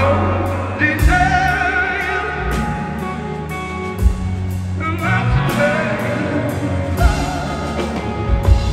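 Live rock band playing: a singer holds long notes with vibrato over guitar and bass, with occasional drum hits.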